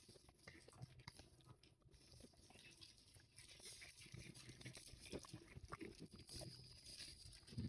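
Faint clicks of a pig's trotters on concrete, then soft crunching as it chews a piece of waffle.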